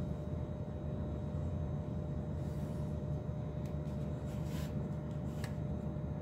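Steady low background hum, with a few faint pencil strokes scratching on paper as lines are drawn along a ruler.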